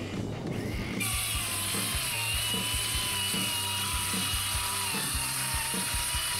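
RIDGID Gen5X cordless 7-1/4" circular saw with a brushed motor cutting through 7/16" OSB. It starts abruptly about a second in, with a steady high motor whine under the hiss of the cut. Background music with a steady beat plays underneath.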